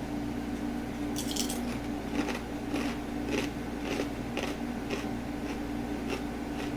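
Biting into crispy fried kangkong (water spinach) chips, a sharp crackly crunch about a second in, followed by steady crunchy chewing at roughly two chews a second.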